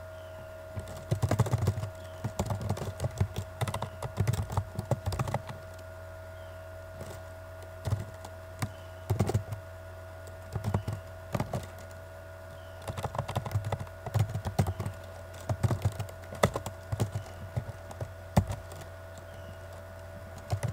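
Typing on a computer keyboard: runs of rapid keystrokes broken by short pauses, over a steady background hum.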